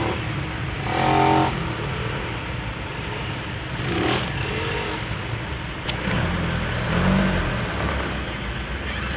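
Engines of vehicles crawling in a traffic jam, a steady low rumble. A short, loud pitched sound stands out about a second in.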